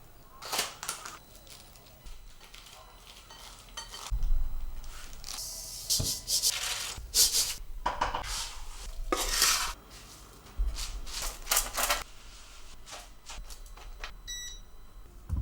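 Kitchen handling sounds: an irregular series of rustles, scrapes and clatters as food and utensils are worked. A short ringing note sounds near the end.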